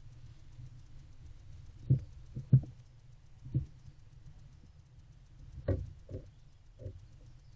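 Soft, irregular knocks and thumps in a wooden barn owl nest box, about six over several seconds, the loudest two a little over 2 s in, over a steady low hum.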